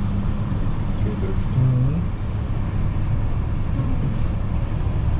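Inclined elevator cabin running, with a steady low hum and rumble from its drive.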